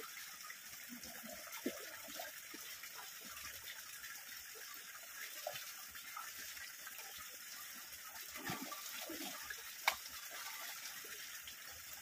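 Shallow stream water running steadily, with faint splashes of someone wading through it and a single sharp click near the end.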